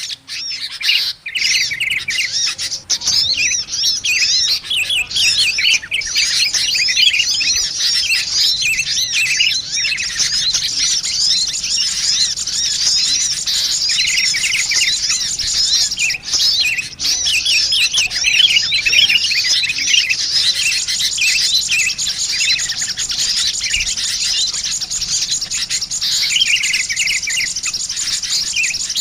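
Dense, unbroken chorus of many small birds chirping rapidly over one another, high and twittering, with a short lull about a second in: a bird-lure recording of sunbird calls mixed with noisy sooty-headed bulbuls.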